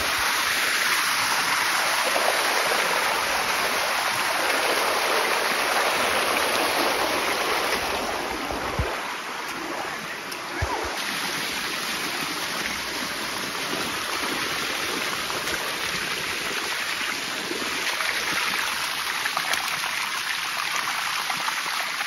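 Shallow water of a waterfall cascade rushing and splashing steadily over rock steps, close by. It eases a little for a few seconds near the middle.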